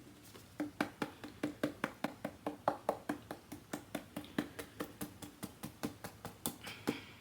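Rapid light tapping, about five taps a second, some with a slight hollow tone.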